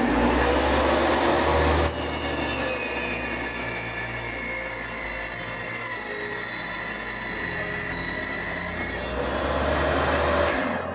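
A power tool running under load: a steady rasping noise with a faint whine above it, easing slightly about two seconds in and building again near the end.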